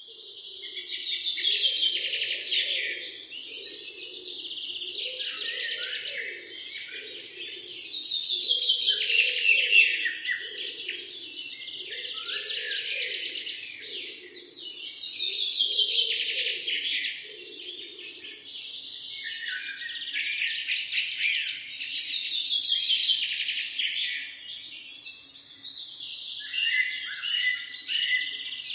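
Wild songbirds singing: a loud, rapid, chattering song phrase comes back about every seven seconds over a continuous chorus of chirps and trills.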